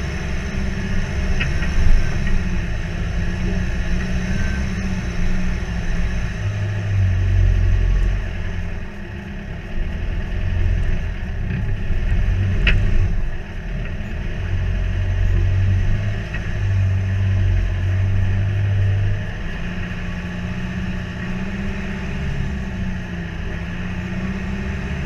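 Mitsubishi MN Triton 4WD's engine running at low revs on a rough, wet dirt track, its low rumble swelling and easing several times. A single sharp knock comes about halfway through.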